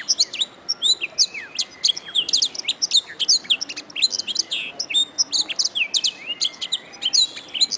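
Domestic canary singing a continuous fast song of rapid chirps, sweeping whistled notes and trills, high-pitched and without pause.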